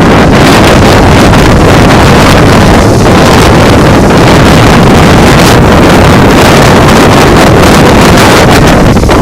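Storm-force wind blasting the microphone: a loud, continuous, distorted roar of wind noise.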